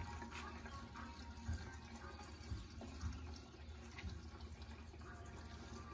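Fuel pouring from a plastic jerry can through its spout into a riding mower's fuel tank, a faint steady filling sound with a few light knocks.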